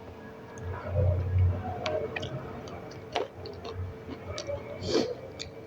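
A person chewing a mouthful of food, with small wet mouth clicks scattered through it.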